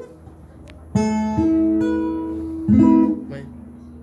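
A Morisson steel-string dreadnought acoustic guitar being strummed. One chord comes about a second in, a second follows and is left to ring, and a third comes near three seconds and dies away.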